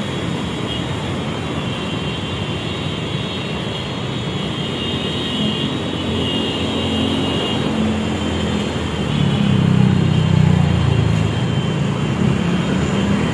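Road traffic of buses, cars and motorbikes passing. A heavy engine builds up about nine seconds in and is loudest around ten seconds.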